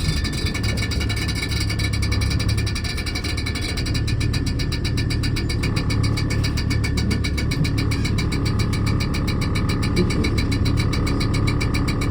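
Morris Minor engine running on the move, with a rapid, even rattling clatter over it: a flexible hose left against the alternator's fan blades is being struck by them. The owner believes this is the cause, and says the noise stops under acceleration.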